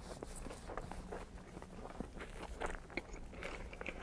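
Biting and chewing a burger: soft, irregular crunches and small wet mouth clicks.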